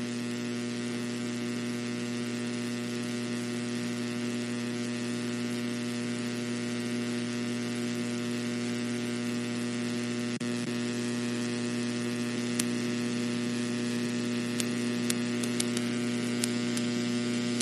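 Steady electrical mains hum with a layer of static hiss, and a few faint clicks in the last few seconds.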